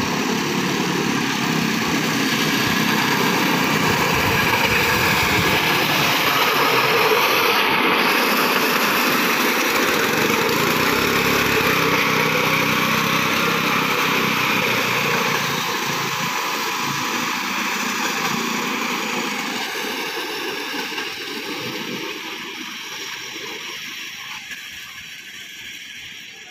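Bangladesh Railway motor trolley's small engine running loud as it passes on the track. It fades away gradually over the last ten seconds or so as the trolley moves off.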